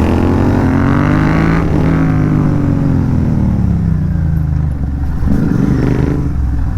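Royal Enfield 650 parallel-twin motorcycle engine on the move, its pitch rising as it accelerates for the first couple of seconds, then falling steadily as the throttle is rolled off, and running lower near the end.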